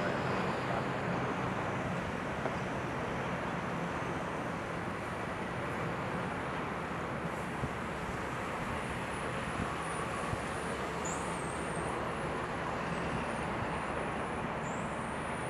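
Steady, distant jet engine noise from a Boeing 787-9 Dreamliner rolling along the runway, heard as an even rush with a low hum underneath. Faint high chirping whistles come in over the second half.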